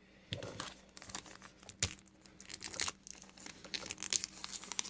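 Trading cards being handled and flipped through, with crinkling of the paper pack wrapper: a string of small clicks and rustles, the sharpest about two seconds in.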